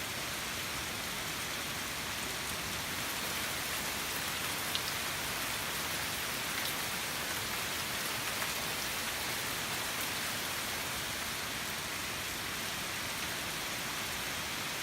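Heavy rain pouring steadily, a constant hiss with a few drips and patters standing out.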